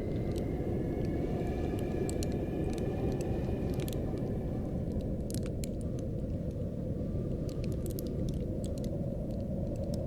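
Cold wind blowing with a steady low rumble, a faint high whistle that wavers through the first few seconds, and scattered small crackling ticks of frost.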